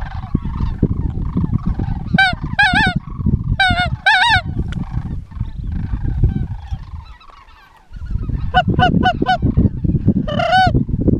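Rolling, warbling calls of sandhill cranes, in short runs about two and four seconds in, then a quicker series of short calls from about eight and a half seconds to the end. Under them runs a low rumble that fades away briefly around seven seconds.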